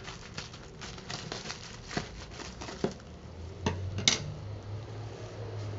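Scissors cutting through a sheet of plastic bubble wrap, with a steady crinkling of the wrap. A handful of louder clicks come from about two seconds in, the loudest about four seconds in.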